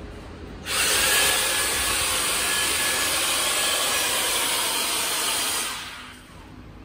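Handheld battery-powered vacuum suction tool for LED display modules, its motor running with a loud, steady hiss that starts suddenly about a second in, holds for about five seconds, then winds down. The suction holds the LED module so it can be pulled off the shelf edge from the front.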